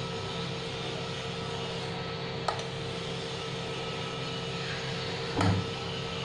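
Steady hum of a running fan or appliance motor, with a light click about two and a half seconds in and a soft knock near the end from a steel spoon against the bowl.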